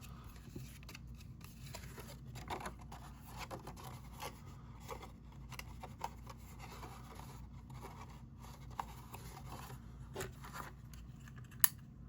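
Pop-up card cardstock being handled and folded, with light paper rustling and scraping as tabs are slid into slots, and a sharp tap near the end.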